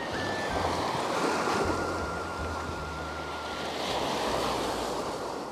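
Small waves washing and breaking onto a sandy beach, swelling twice, with wind rumbling on the microphone.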